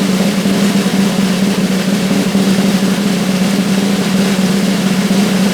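Snare drum roll, fast and even, held at a steady level throughout.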